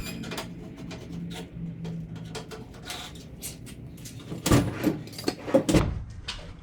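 An engine-bay trim panel being handled and fitted back into place: scattered light clicks, then a cluster of loud knocks about four and a half to six seconds in.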